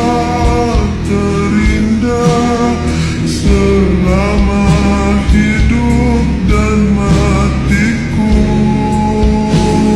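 A song playing: a sung melody over guitar, bass and a steady beat.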